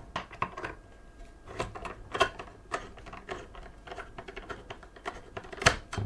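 Irregular light clicks and taps of a screwdriver turning the spring-loaded mounting screws of a tower CPU cooler, with one louder click near the end.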